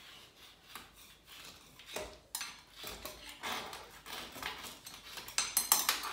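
Hand scraper blade scraping old silicone sealant out of a shower joint in a run of short, irregular strokes, getting louder and quicker near the end. The sealant has been softened with WD-40 and is coming off easily.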